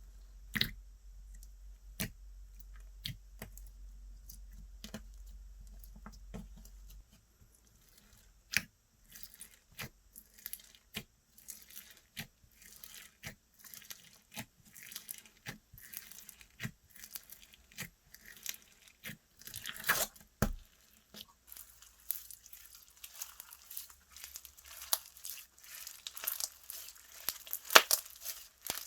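Slime being worked by hand, giving sharp clicks and pops: sparse at first, about one a second, then a dense crackling from about nine seconds in, busiest near the end.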